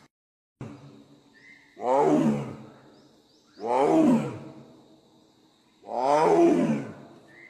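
Bengal tiger roaring: three long roars about two seconds apart, each rising and then falling in pitch.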